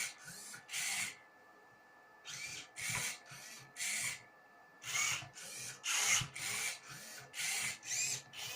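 Prototype Rubik's cube solving robot turning the cube's faces: a rapid run of short mechanical whirs, about one per move, with two brief pauses, over a faint steady whine.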